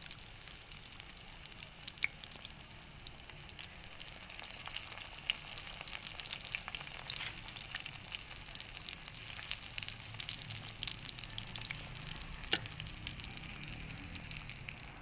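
Masala-coated fish pieces shallow-frying in hot oil in a pan: a steady sizzle with frequent crackles and pops of spitting oil.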